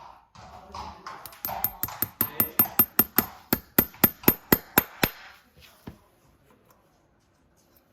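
Farrier's hammer striking metal: a quick run of about sixteen sharp, ringing blows, roughly four a second, then one more blow about a second later.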